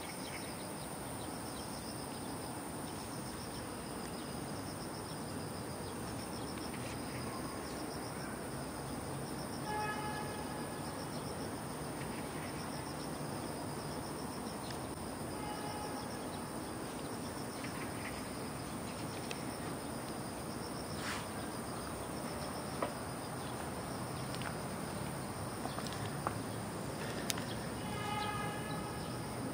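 Insects chirring steadily in a high, pulsing drone. A short pitched call sounds three times over it.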